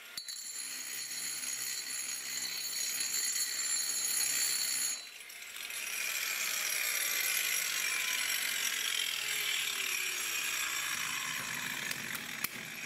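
A 125 mm angle grinder with a diamond cup wheel grinding down a concrete floor. The motor whines steadily and dips briefly about five seconds in. After that the wheel scrapes grittily on the concrete while the motor's pitch slowly sinks.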